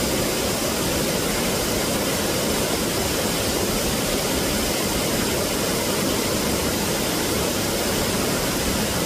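Small waterfall pouring between boulders into a stream, a steady, even rush of water.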